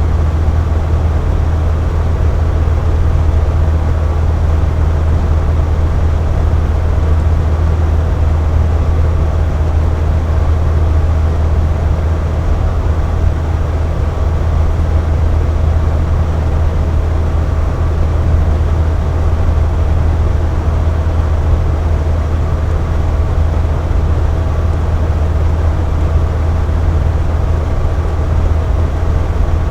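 Box fan running steadily: a constant deep whooshing hum of the blades and motor with a faint steady whine above it.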